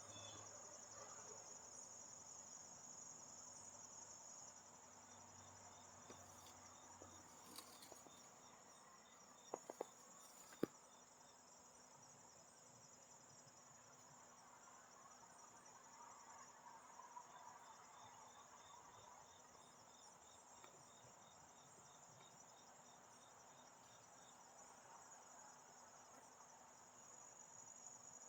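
Faint, steady chirring of crickets, with a few soft clicks about ten seconds in.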